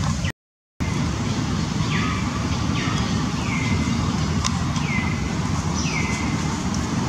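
Infant macaque crying: four high-pitched calls, each sliding down in pitch, at intervals of one to two seconds, as a weaning baby begs to nurse. A steady low rumble runs underneath, and the sound drops out briefly just after the start.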